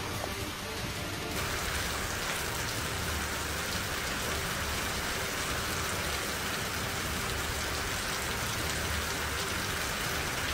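Steady rain falling on flooded ground and standing water, a continuous hiss with no breaks. About a second and a half in, the sound shifts and becomes brighter and more hissing.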